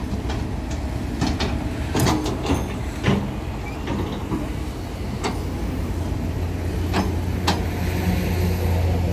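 Diesel engines of excavators running steadily, a low drone that grows stronger over the last few seconds, with a few sharp knocks scattered through it.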